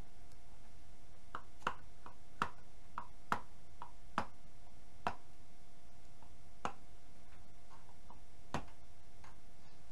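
Light hammer taps, about a dozen at irregular intervals, on the housing of an outboard's power trim-and-tilt electric motor, knocking it to free a bearing stuck inside. A faint steady hum runs underneath.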